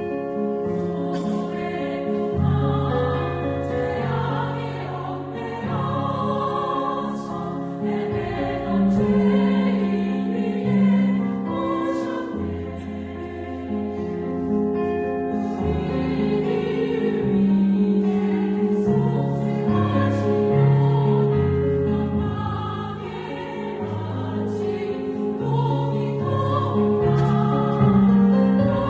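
A church vocal ensemble singing a Christmas hymn in several voice parts, holding long notes.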